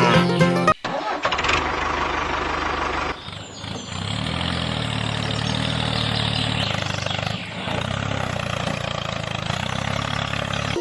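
A motor running steadily after a cut from music, dipping briefly about three seconds in and then running on at an even level.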